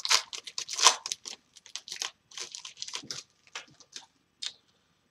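Foil trading-card pack wrappers being torn open and crinkled by hand: a dense run of crackles in the first second or so, thinning to scattered ones over the next few seconds.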